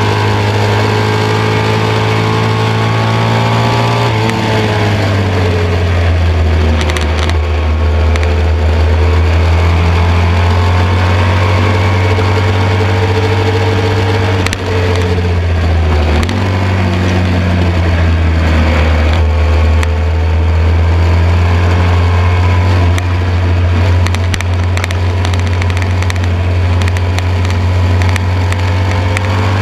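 1972 BMW R75/5's 750 cc air-cooled flat-twin boxer engine running hard under racing load, with wind rush over the on-bike microphone. The engine note drops about four seconds in as the rider eases off, dips briefly a little before the middle, and climbs again at the end.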